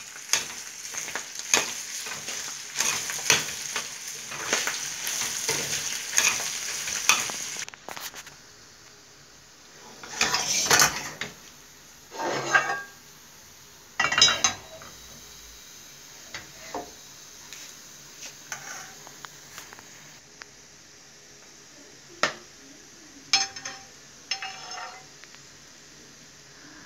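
Ground pork sizzling in a stainless steel pan as a spatula scrapes and clinks against the pan about twice a second; the sizzling cuts off about eight seconds in. After that, scattered clinks and clatters of a pan and utensils.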